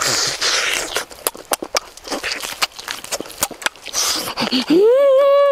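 Close-up eating sounds: wet lip smacks, clicks and sucking slurps as someone sucks on a cooked chicken head and neck. Near the end a long drawn-out voiced exclamation that rises and then falls in pitch, lasting about a second and a half, louder than the eating.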